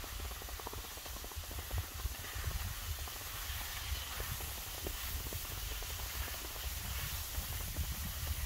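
Skis sliding over packed snow with a steady hiss, under the low rumble of wind buffeting the microphone, with scattered small clicks.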